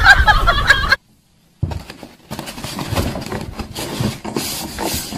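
A woman's voice for about a second, cut off suddenly. After a short gap comes irregular scraping and crackling: a cat clawing and pushing at a styrofoam box.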